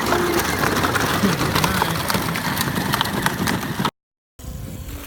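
Jeep driving off, its wheels crunching and clattering over rough ground in a dense run of clicks. The sound cuts off abruptly about four seconds in.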